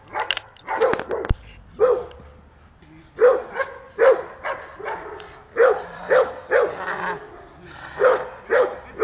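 Belgian Shepherd guard dog barking repeatedly, mostly in quick runs of two or three barks. There is a sharp knock about a second in.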